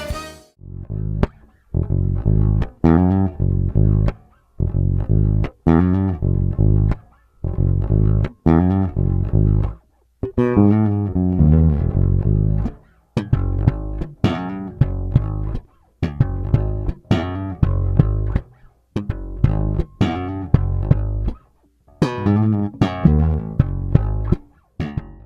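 Fernandes electric bass being played in short plucked phrases of low notes, about one phrase every two seconds, each broken off by a brief silence, testing its newly installed Seymour Duncan Quarter Pounder pickups.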